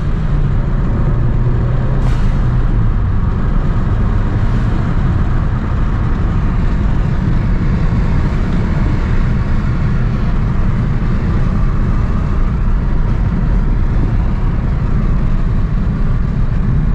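Ford Focus ST's turbocharged 2.0-litre four-cylinder heard from inside the cabin, running steadily at around 50 mph with tyre and road noise. There is one sharp click about two seconds in.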